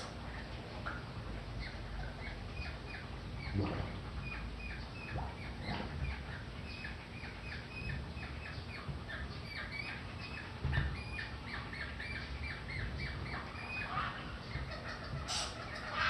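Birds chirping in quick, repeated short notes, with a few dull thumps.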